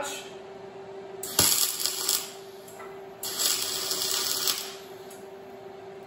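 Wire-feed welding gun striking two short tack welds on steel, each a crackling arc hiss lasting about a second. The first starts with a sharp click about a second in, and the second comes about three seconds in. A steady faint hum runs underneath.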